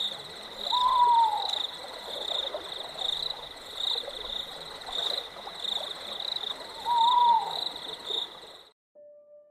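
Night ambience sound effect: a steady, pulsing chorus of frogs and insects, with an owl hooting twice, about a second in and again about seven seconds in. It cuts off near the end, and a soft piano note begins.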